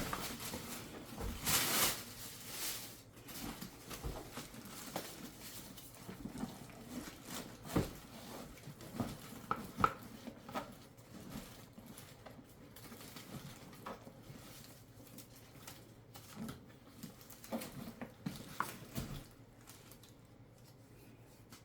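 A handbag and its packaging being handled: scattered rustling with light taps and clicks, loudest in a rustle about two seconds in.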